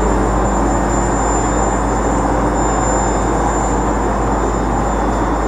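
Steady, loud urban din of traffic and site machinery, with a thin high whine held throughout.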